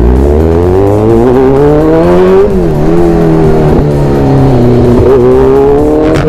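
Kawasaki Z1000's inline-four engine under acceleration while riding. The engine note climbs, drops sharply at a gear change about two and a half seconds in, dips again a little later, then climbs once more.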